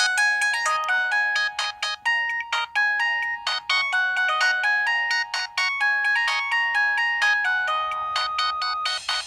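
Preloaded ringtone of a ZTE F102 mobile phone playing: a quick melody of short, sharply struck notes, changing to a brighter sound near the end.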